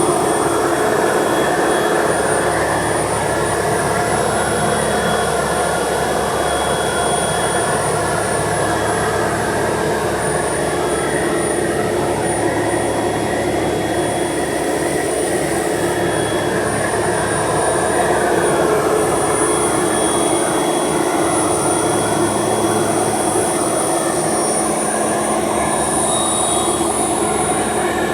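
A large engine running steadily at a constant speed, with a continuous hum and no pauses.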